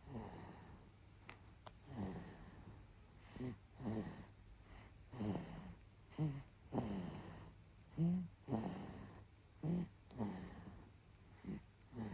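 Soft snoring in sleep, one snoring breath about every second and a half, often a short snort followed by a longer drawn-out breath.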